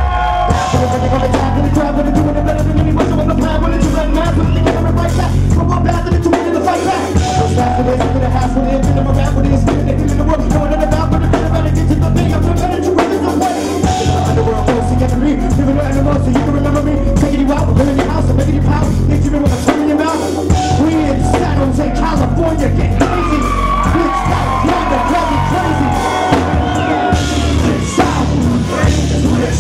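Loud live rap-rock music from a band with electric guitar and a drum kit, with a vocalist's voice through the PA at times.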